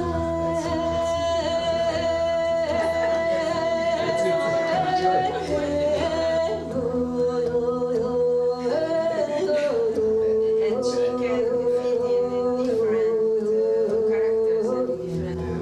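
Music: a voice singing long held notes that step from one pitch to the next, over a steady low drone.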